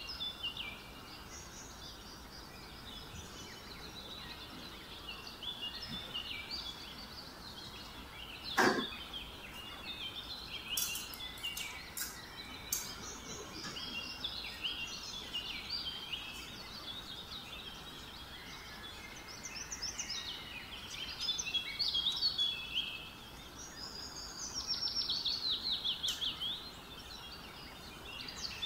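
Many small birds chirping and singing in the background, with a fast trill near the end. One loud knock about a third of the way in, then a few sharp clicks.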